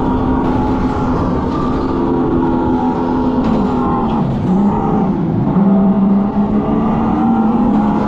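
An electric go-kart's simulated engine sound: a steady pitched drone that drops in pitch about four seconds in, then holds lower as the kart slows. Wind noise on the microphone rumbles underneath.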